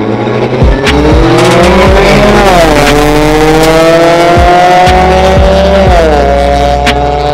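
Two small street cars, a Hyundai HB20 and a Renault Logan, launching from a standing start in a drag race. Their engines rev up hard and shift up twice, with the pitch dropping sharply about two and a half seconds in and again about six seconds in.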